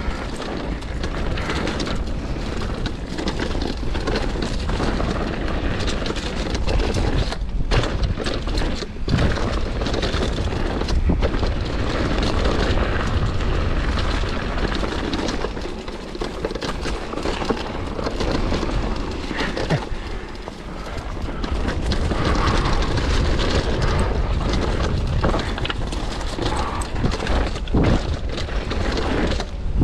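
Wind buffeting the microphone over the rattle and crunch of a downhill mountain bike riding fast down a rough dirt trail, with a steady low rumble and frequent irregular knocks.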